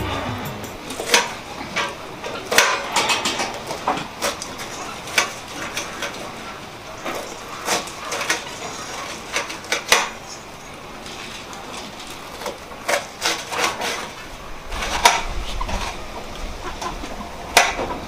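Dishes and utensils clinking and knocking irregularly, as of someone eating from a plate, with short sharp clicks about once a second and a lull in the middle.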